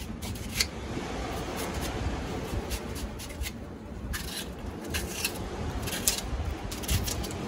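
Kitchen knife slicing through a raw onion held in the hand, a run of short crisp cuts at irregular intervals, over a low rumble.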